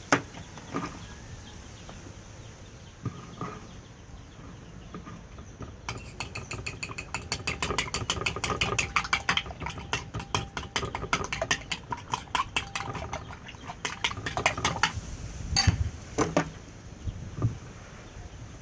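Close-up food and utensil sounds: a fast, even run of small clicks and smacks starting about six seconds in and stopping near fifteen seconds, followed by a few louder single knocks.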